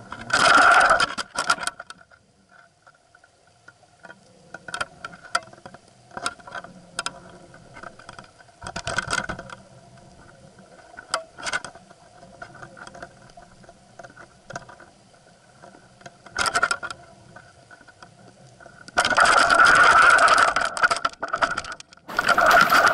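Muffled underwater sound from an action camera's waterproof housing hanging on a fishing line: a faint steady hum with scattered scrapes and knocks. The loudest rushes come about a second in and for a couple of seconds near the end.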